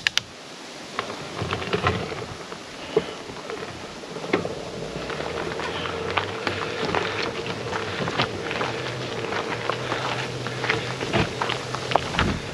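Loose gravel crunching and crackling in many small clicks under the bike's tyres and feet on a steep gravel climb. About five seconds in, a steady whine from the e-bike motor joins in.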